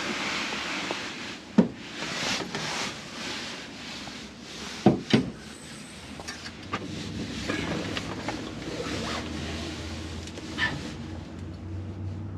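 Canvas tent fabric and straps being handled, rustling and scraping, with a few sharp knocks, two close together about five seconds in. A low steady hum comes in about eight seconds in.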